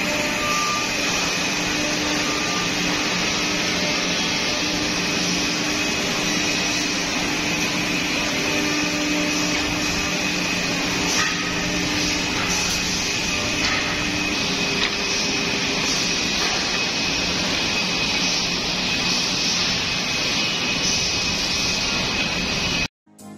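Steady din of woodworking factory machinery, with CNC mortising machines and dust extraction running together: an even airy hiss over a steady high whine and a low hum, with a few faint knocks. It cuts off abruptly near the end.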